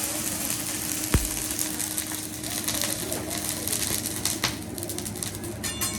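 Clinks and clicks of metal utensils and dishes, with one loud thump about a second in, over the murmur of a busy restaurant dining room.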